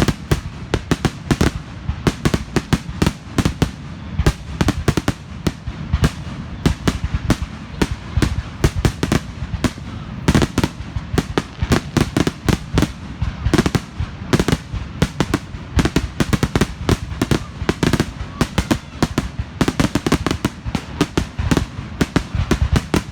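Aerial fireworks display going off in a dense barrage: sharp bangs and crackles several times a second over a continuous low rumble.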